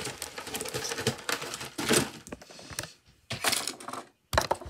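Hands handling a plastic action figure and its machete accessory: a quick, irregular run of small clicks, taps and rustles, with a few sharper taps near the end.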